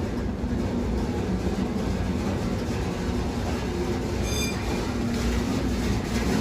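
BART train running, a steady rumble of wheels and motors heard from inside the car, with a brief high-pitched tone about four seconds in.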